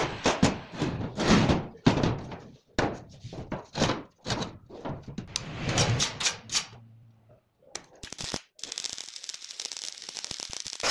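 Steel plates being handled on a workshop floor, a series of irregular knocks and scrapes. Near the end a stick-welding (arc) electrode strikes and crackles steadily as a weld is laid on the steel.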